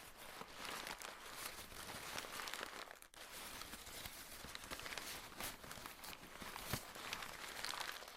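Paper being torn and crumpled by hand, a continuous crackling rustle with many small sharp crackles and a brief pause about three seconds in.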